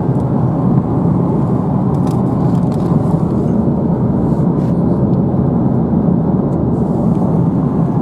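Steady road and engine noise inside the cabin of a moving car.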